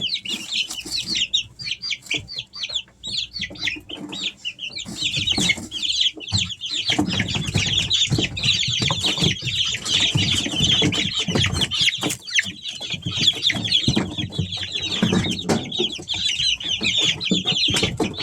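A brood of three-week-old Easter Egger chicks peeping constantly, many short high chirps overlapping into a busy chatter that grows denser about five seconds in. A lower rustling noise runs underneath from about seven seconds in.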